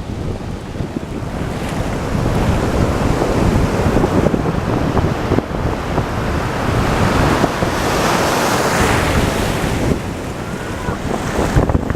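North Sea surf washing onto the beach, with strong wind buffeting the microphone; the wash swells loudest toward the middle of the stretch.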